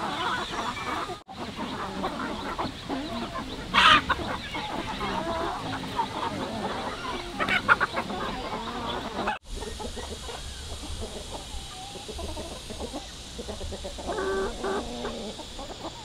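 Chickens clucking, with a couple of short, loud squawks.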